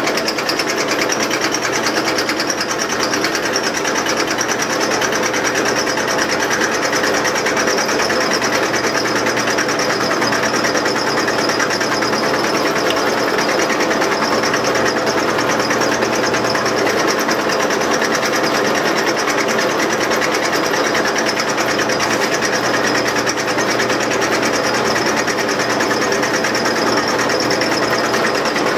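Drill press running steadily, its bit working into the nail holes of a steel horseshoe held against it by hand.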